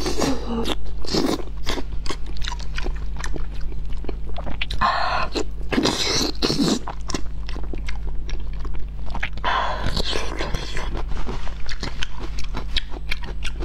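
Close-miked wet, sticky chewing and biting of a thick piece of braised eel in glossy sauce, with many small mouth clicks and several longer wet sucking sounds. A steady low hum runs underneath.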